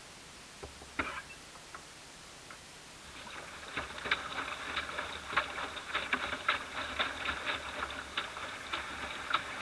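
Small ripples lapping and slapping against a small boat's hull as it drifts slowly. At first there are only a few faint ticks, then about three seconds in they thicken into a steady patter of irregular little splashes and clicks.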